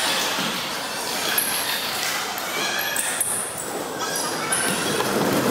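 Indistinct crowd chatter and general noise in a basketball gymnasium, with a few short high-pitched squeaks scattered through it.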